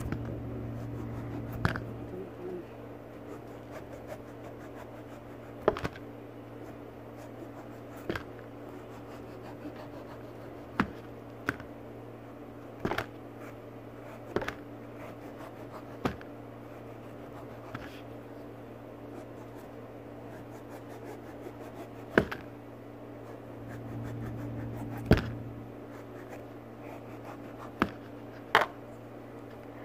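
Kitchen knife peeling the skin off a mango by hand: quiet scraping and cutting with irregular sharp clicks every second or few as the blade strokes through the peel. A steady low hum sits underneath.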